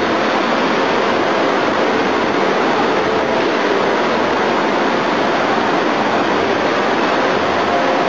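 Steady crowd chatter in a large room: many people talking at once, blending into a continuous wash with no words clear.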